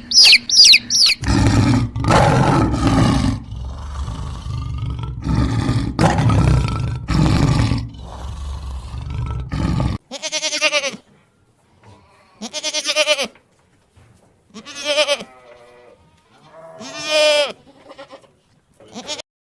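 Deep, rough animal calls repeated for about nine seconds, followed by an animal bleating four times, each bleat a wavering call of about a second, about two seconds apart.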